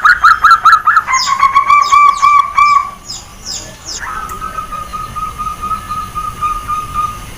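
Zebra dove (perkutut) cooing: a fast run of short, rolling notes for about three seconds. Then come a few high, quick chirps, and a long steady whistled note held for about three seconds.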